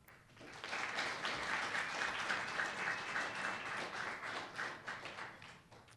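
Audience applauding: many hands clapping. It builds up about half a second in and dies away near the end.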